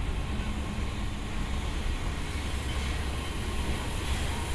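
SL Hitoyoshi's passenger coaches rolling slowly past behind a diesel locomotive: a steady low rumble of the moving train.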